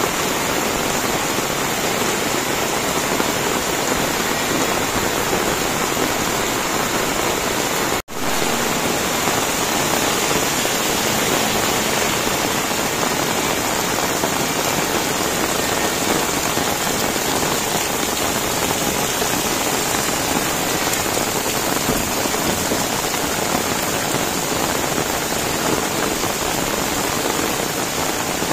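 Heavy rain falling steadily on a wet concrete lane and roofs, a dense even hiss. The sound cuts out for an instant about eight seconds in.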